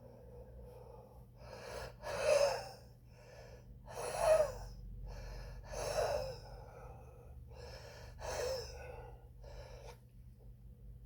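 A smoker breathing hard through the mouth with a wheeze: four loud, harsh breaths about two seconds apart with quieter breaths between them. The wheeze comes from heavy cigarette smoking.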